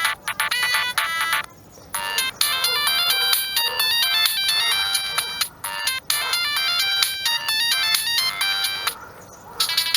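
Polyphonic ringtone melody from a Siemens M65 mobile phone: quick stepped electronic notes. The tune breaks off briefly about one and a half seconds in and again near the end.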